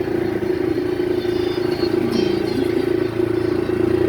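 Small motorcycle engine running at a steady speed while being ridden, a constant even hum.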